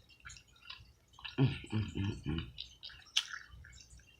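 A person eating barbecued pork neck bones: wet mouth clicks and lip smacks while chewing, with a quick run of four or five short voiced sounds through the closed mouth about a second and a half in.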